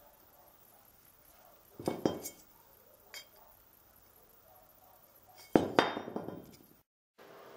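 Steel parts knocking and clinking as they are handled: a square steel tube and a large bolt. There is a pair of metal knocks about two seconds in, a light clink a second later, and the loudest knock, with a short ringing tail, near six seconds.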